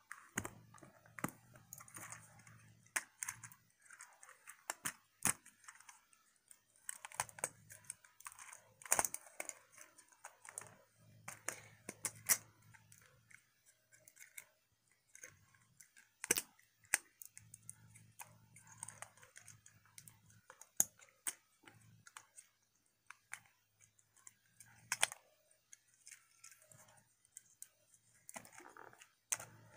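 Plastic action-figure joints and panels clicking and snapping as a Transformers Siege Sideswipe figure is folded by hand from car into robot mode: irregular, sharp little clicks, with short pauses between bursts of handling.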